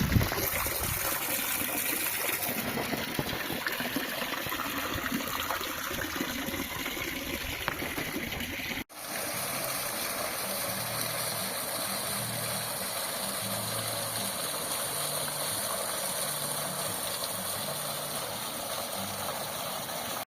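Water running and splashing steadily down a small garden waterfall of decorative artificial stone. There is a brief drop-out about nine seconds in, after which the splashing carries on.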